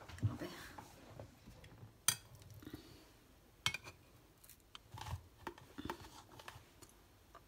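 Faint kitchen handling sounds: a metal server scraping and clicking against a glass baking dish as pieces of mung bean paste are lifted out, and a plastic container knocked while it is handled. There are a few sharp clicks, one about two seconds in, one near the middle and a small cluster towards the end.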